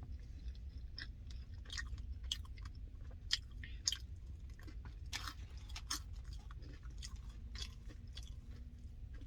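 Close-miked chewing of food, with many small irregular clicks and crunches over a low steady hum.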